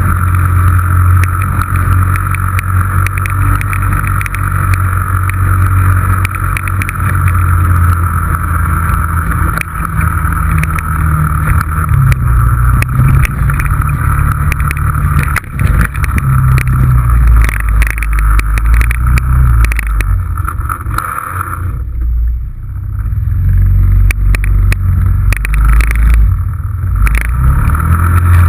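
Yamaha Rhino 660 side-by-side's single-cylinder four-stroke engine running under way, a steady low drone with a whine above it and scattered clicks. About three-quarters of the way through, the whine drops out and the engine eases off for several seconds, then picks up again.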